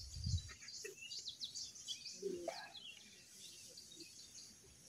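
Small birds chirping faintly in the background, a quick scatter of short rising and falling chirps all through.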